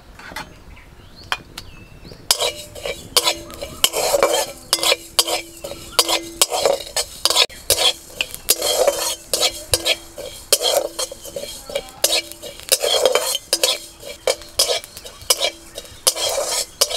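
Metal spatula stirring and scraping whole coriander, cumin and fennel seeds around a dry metal kadai, dry-roasting the spices: rapid repeated scrapes with the seeds rattling and a steady ringing tone from the pan. The stirring starts a couple of seconds in.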